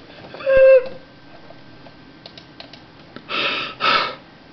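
A person's short high-pitched whimper, then two breathy exhales near the end, the sounds of someone shaken by a fright.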